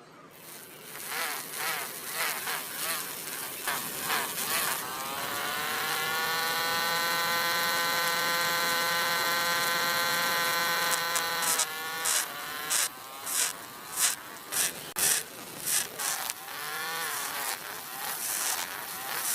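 Small electric toy motor buzzing. It spins up to a steady whine about five seconds in, holds it for several seconds, then runs in short, uneven bursts near the end.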